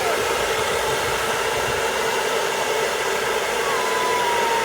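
Hair dryer blowing steadily as a miniature dachshund's coat is dried. A thin tone glides slightly downward near the end.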